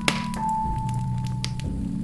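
Wood fire crackling in a fireplace, with scattered pops and one sharp pop right at the start, under soft music with long held bell-like notes and a low drone.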